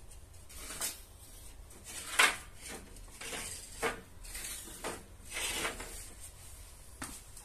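Wooden battens or boards being handled, knocked and scraped about five times at irregular intervals. The sharpest, loudest knock comes about two seconds in, and a longer scrape follows later.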